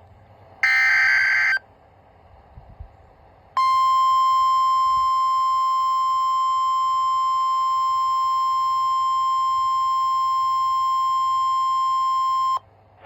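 The last burst of an Emergency Alert System SAME data header, a harsh digital screech about a second long. After a short hiss-filled gap comes the NOAA Weather Radio 1050 Hz warning alert tone, a single steady beep held for about nine seconds that cuts off suddenly near the end. It is the signal that a test tornado warning message is about to be read.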